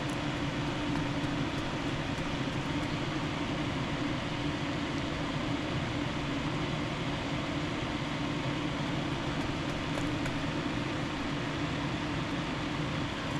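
Steady whir of a fan running, with a low hum under it and an even level throughout.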